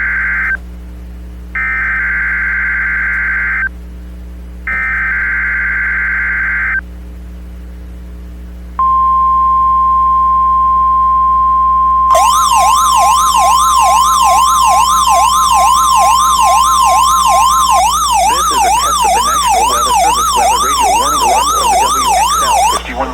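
NOAA Weather Radio required weekly test: three bursts of SAME digital header data tones, each about two seconds long, then the steady 1050 Hz warning alarm tone for about nine seconds. About three seconds after the alarm tone starts, a weather alert receiver's warbling siren comes on, rising and falling about twice a second, and keeps going for several seconds after the steady tone stops.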